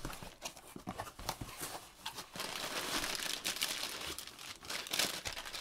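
Plastic packaging bag crinkling and rustling as a bagged item is pulled out of a cardboard shipping box, in irregular crackles that grow busiest toward the second half.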